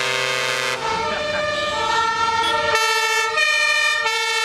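Fire engine's two-tone siren sounding, alternating steadily between two pitches about every two-thirds of a second, opened by a short horn blast.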